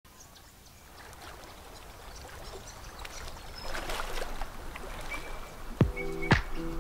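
Soft rushing water-like ambience fading in, with a few short high chirps over it. Background music starts near the end, with two sharp beats and sustained chords.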